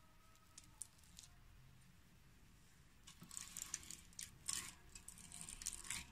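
Soft scraping and tapping of a steel spoon as sticky date molasses is spooned into a bowl of flour: a few faint ticks, then a run of quiet scrapes and taps from about three seconds in.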